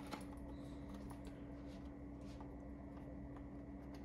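Faint light clicks and taps from handling a USB cable and the dashboard screen unit, over a steady low hum.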